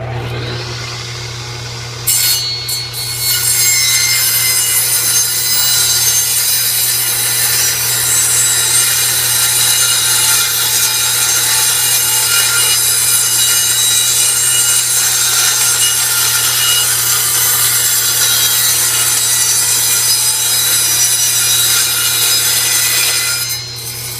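Old belt-driven circular saw: the electric motor hums and the blade spins up, then about two seconds in the blade bites into plywood and cuts steadily and loudly for about twenty seconds. Near the end the cut finishes and the saw drops back to running free.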